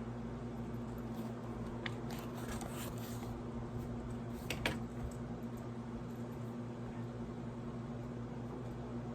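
Washing machine running with a steady low hum, and a few light clicks about two and four and a half seconds in.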